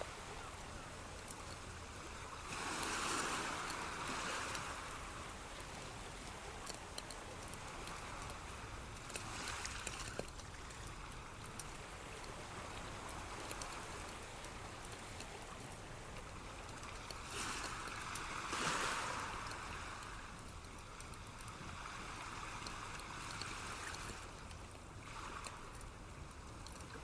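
Continuous rushing water noise, swelling and easing several times, like surf washing in, with the loudest swell about two-thirds of the way through.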